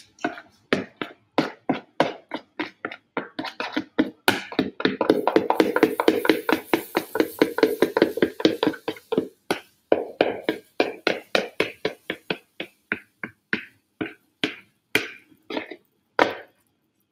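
A spatula scrapes and knocks against a plastic mixing bowl as thick batter is scooped out into a frying pan: a long run of short knocks, about three a second. In the middle stretch the knocks come thicker, with a hiss over them.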